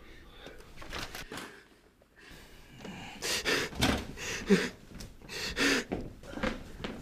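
A man gasping and breathing hard in ragged, partly voiced breaths. They are faint at first and come loud and fast, about two a second, from about three seconds in.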